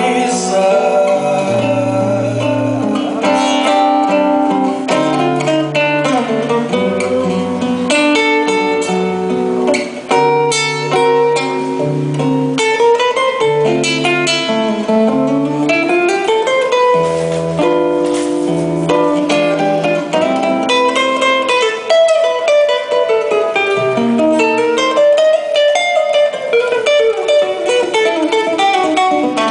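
Nylon-string classical guitar playing a solo instrumental passage, a plucked melody moving over changing bass notes.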